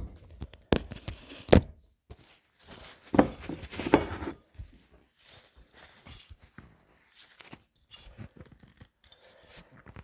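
Hands gripping and twisting a stuck metal twist-off cap on a glass bottle: two sharp clicks, then rough scraping and rubbing as the cap is forced.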